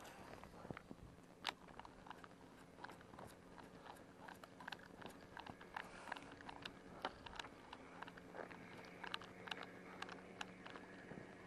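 Faint, irregular small clicks and ticks, several a second, from a baitcasting reel being cranked while the rod jerks a jerkbait back, over a faint low hum.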